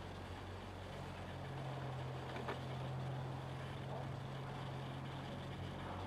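A motor's low, steady hum, coming up about a second and a half in and easing off near the end, over a faint background hiss.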